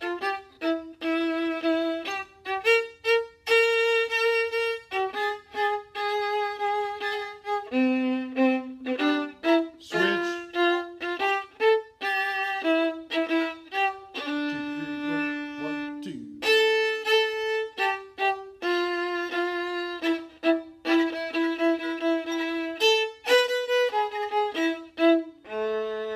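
A single viola played solo, bowing a continuous passage of separate notes, some short and some held, mostly in its middle range.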